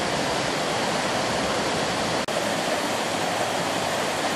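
Steady rushing of a small waterfall on a rocky stream. It cuts out for an instant a little over two seconds in, then carries on.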